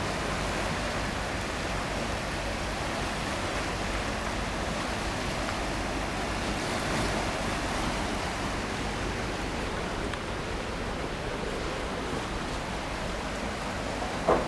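Steady rushing of high floodwater pouring under a bridge, with one short knock near the end.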